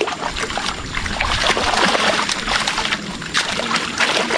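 Continuous splashing and sloshing as a long-handled dip net is swept through shallow muddy water inside a bamboo fish trap, with trapped fish thrashing at the surface.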